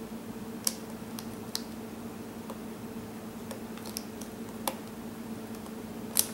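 A few scattered light clicks and taps as the plastic laptop parts are handled and fitted back together, over a steady low hum.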